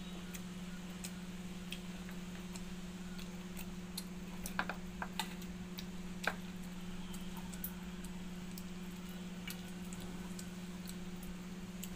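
Eating by hand: scattered soft clicks and smacks of chewing, and fingers picking food and mixing watery rice in a steel bowl, thickest about halfway through. A steady low hum runs underneath.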